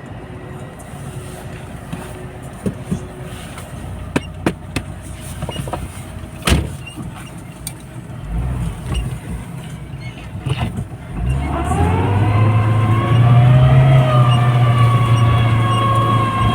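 Off-road vehicle engine running low with several sharp knocks, then about eleven seconds in it revs up hard and holds at high revs as the vehicle, stuck in a snowdrift, tries to power its way out.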